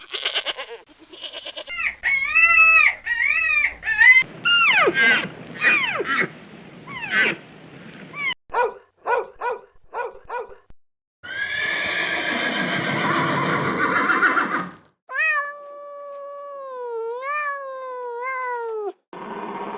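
Different animal calls cut one after another, among them a dog and a cat, each lasting a few seconds with short breaks between. Midway there is a run of about five short, evenly spaced calls, and near the end a long call whose pitch wavers down and up.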